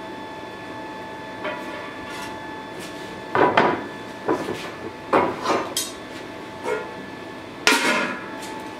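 Irregular metallic clanks and knocks of steel tongs and a hot sword blade being handled on a steel workbench during heat treatment, about six strikes, the loudest roughly three and a half, five and nearly eight seconds in, over the steady hum of the burning forge.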